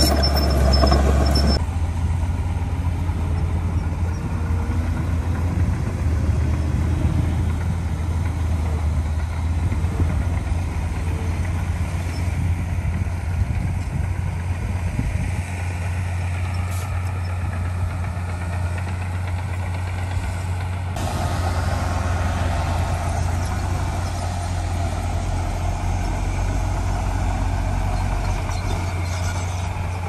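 Heavy diesel earthmoving machinery running steadily with a low engine hum. It drops a little about two seconds in, and a brighter engine sound comes in about two-thirds of the way through.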